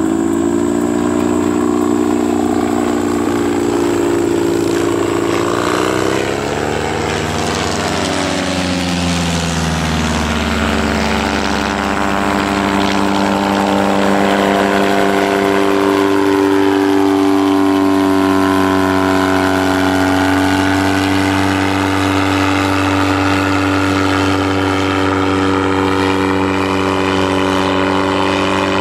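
Modified Bensen gyrocopter in flight, its McCulloch two-stroke engine with custom mufflers driving a pusher propeller at steady power. The engine note dips in pitch about seven to ten seconds in as the gyroplane passes and turns, then holds steady.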